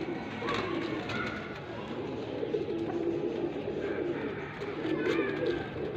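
Domestic pigeons cooing: low, warbling coos repeated and overlapping throughout.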